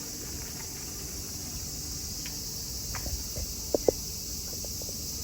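Steady high-pitched chorus of insects, with a few short clicks from about three seconds in, the two loudest close together just before four seconds.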